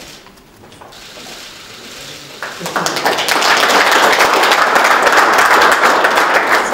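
A room of people applauding, the clapping starting about two and a half seconds in and running on as dense, steady applause.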